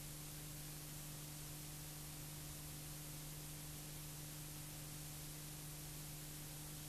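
Steady hiss with a low, constant electrical hum, the background noise of a silent film transfer.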